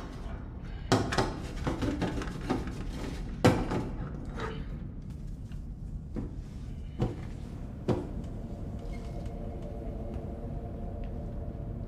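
A run of knocks and clatters, several close together, then single knocks spaced a second or so apart. About eight seconds in, a low held tone of suspense music takes over.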